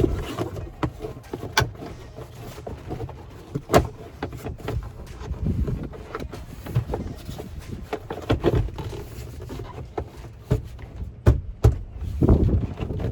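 Plastic interior trim panels of a Nissan 300ZX being handled and pushed into place in the car's rear: irregular knocks and clicks, a couple of them sharper and louder, over wind rumbling on the microphone.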